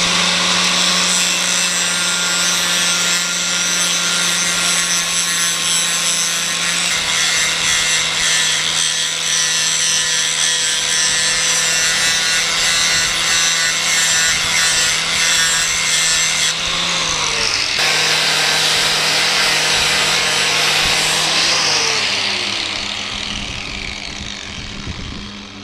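Electric angle grinder grinding the steel of a double-bit axe head to reshape it: a steady motor whine under loud grinding hiss. It is cut off and started again about two-thirds of the way in, then switched off and spins down to a stop near the end.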